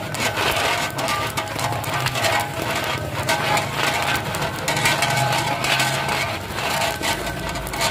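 Popcorn being stirred with a paddle in a large iron pan, with repeated rattling and scraping clicks, under background music.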